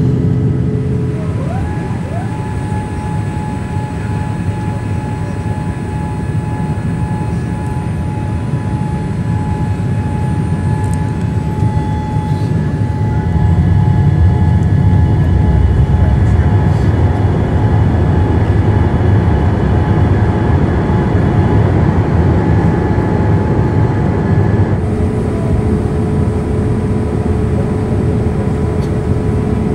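Boeing 787 cabin noise on descent: a steady rumble of engines and airflow heard from a window seat, growing louder about halfway through. A steady mechanical whine starts with a quick rise a second and a half in and stops abruptly about five seconds before the end.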